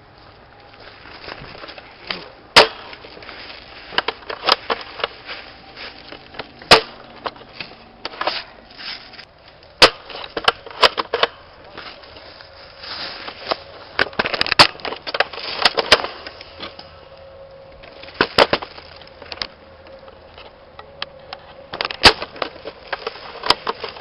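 Airsoft guns firing: sharp, irregular cracks and snaps, mostly single shots with a few quick clusters, with rustling in between.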